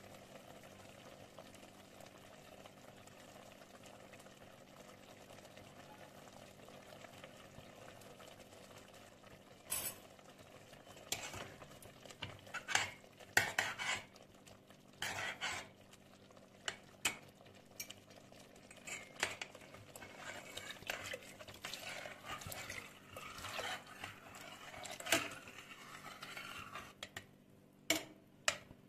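Metal ladle stirring vegetables in a stainless steel pot, clinking and scraping against the pot's sides in short irregular strokes. The stirring starts about a third of the way in, after a stretch of faint steady background noise.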